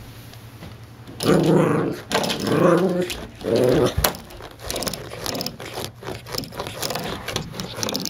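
Puppy growling in three long growls, then a sharp snap about halfway through followed by a run of lighter clicks and taps as it worries a door stopper.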